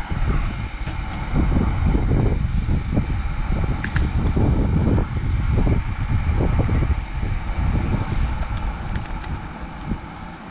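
Gusty wind buffeting the microphone: a low rumble that swells and fades irregularly, with a faint steady hiss on top.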